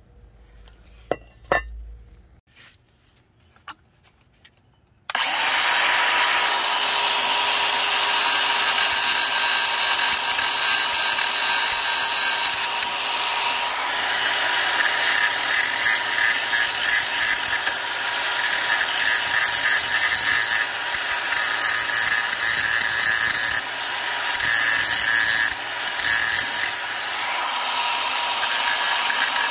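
A few light clicks, then about five seconds in a DeWalt cordless angle grinder starts and runs steadily, grinding rust off the pad-slide surfaces of a brake caliper bracket, its sound dipping briefly now and then as the disc is pressed into the metal.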